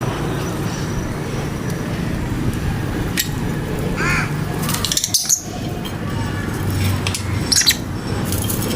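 Fischer's lovebird giving a single short squawk about four seconds in, over a steady low background, with a few sharp clicks and crackles scattered through.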